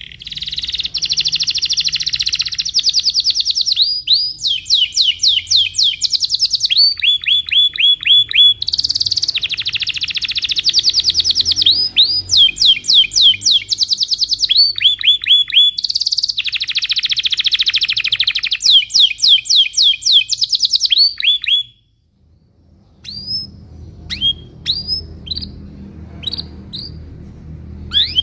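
Domestic canary singing a fast, unbroken song of rapid trills and rolls for about twenty seconds, then stopping abruptly. After a short gap come only scattered short chirps, over a faint low hum.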